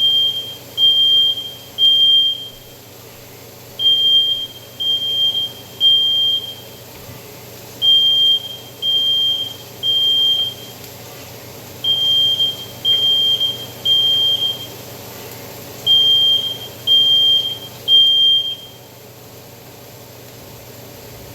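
Household smoke alarm sounding a single high beep in groups of three, about a second apart, with a short pause between groups: the temporal-three fire-alarm pattern. It sounds five rounds, then stops by itself near the end. It is a false alarm set off by cooking, not by a fire.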